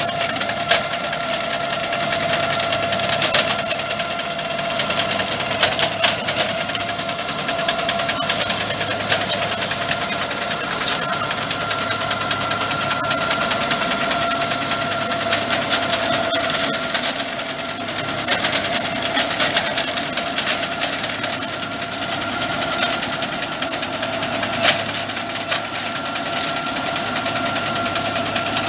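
Rigitrac SKH95 tractor running under load, driving a boom-mounted Mense RP 8L clearing shear through hedge brush. A steady high whine sits over the engine, with a fast rattling chatter and now and then a sharp crack as branches are cut.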